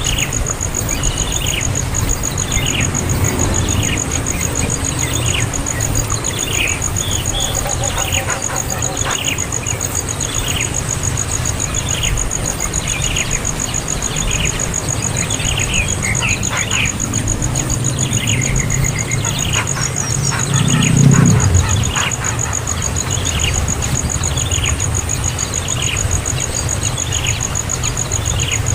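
A young bird calling over and over, short downward-sliding calls about once a second, over a steady high insect trill and low rumbling background noise, with one louder low thump about two-thirds of the way through.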